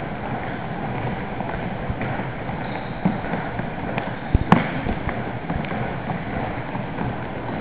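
Steady noise of a maypole dance in a gymnasium: dancers' feet skipping on the wooden floor and a murmuring audience, with one sharp knock about four and a half seconds in.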